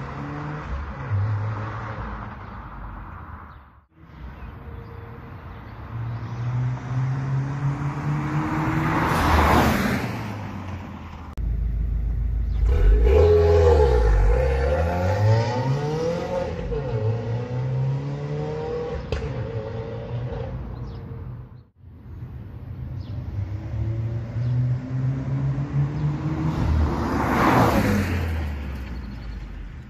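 Subaru WRX's turbocharged flat-four exhaust in several short mild-driving clips: the car pulls away, climbs and drops in pitch through gear changes, and twice drives past, loudest as it goes by. The earlier clips are with the stock J-pipe; the later ones are with an aftermarket MAPerformance J-pipe and the stock cat-back exhaust.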